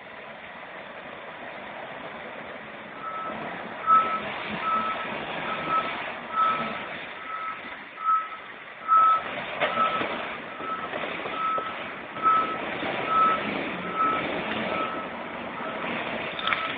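Heavy machine's backup alarm beeping at one steady pitch, a little more than once a second, starting a few seconds in, over the noise of the machine working.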